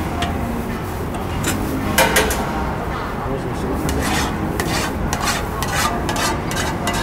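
Irregular scraping and clinking strokes of a metal cooking utensil against a pan, over a steady low background hum.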